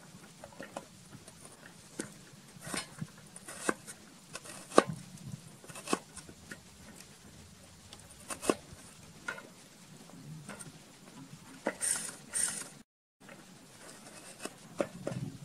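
Cleaver chopping garlic on a cutting board: irregular sharp knocks of the blade hitting the board, sometimes two in quick succession.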